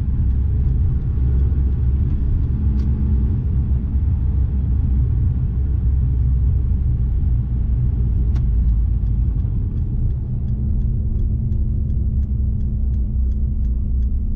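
A car's steady low road and engine rumble while driving in city traffic. From about eight seconds in, a regular light ticking, about three a second, runs over the rumble.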